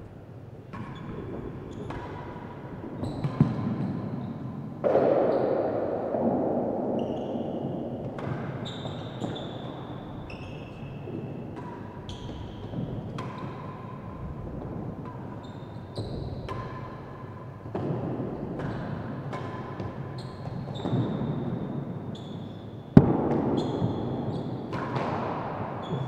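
Real tennis ball being played: sharp hits of racket on ball and the ball striking the walls and floor of an indoor court, each echoing in the hall, coming irregularly through the rallies, with one much louder crack about 23 seconds in.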